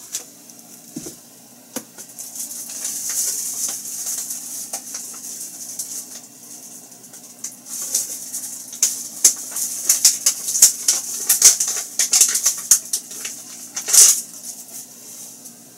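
Flour and potato-starch mixture being stirred in a mixing bowl: a soft scraping hiss at first, then a run of quick clicks and taps of the utensil against the bowl in the second half.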